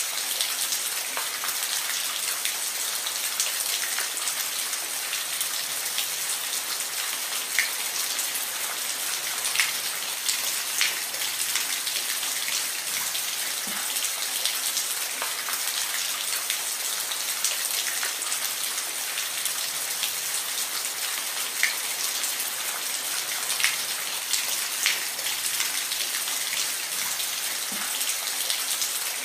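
Steady rain falling, a dense even hiss with individual drops ticking sharply here and there.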